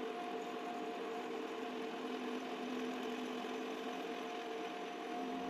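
Metal lathe running with a steady hum while the cutter takes a facet off a bolt head.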